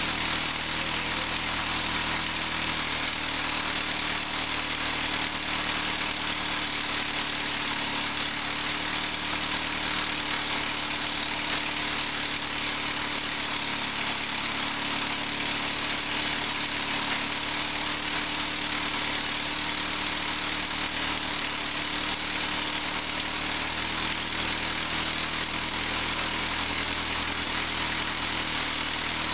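Massey-Harris Pony tractor's small four-cylinder engine running steadily at idle, its low, even note changing only slightly a few times.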